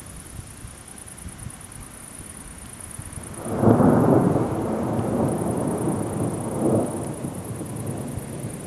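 Thunder from an approaching thunderstorm: after a quiet start, a rumble swells about three and a half seconds in and rolls on, with a second swell a few seconds later before fading.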